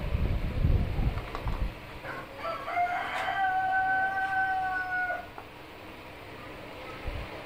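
A rooster crowing once, a long held call of about three seconds in the middle that drops slightly in pitch as it ends. Low rumbling thumps come near the start.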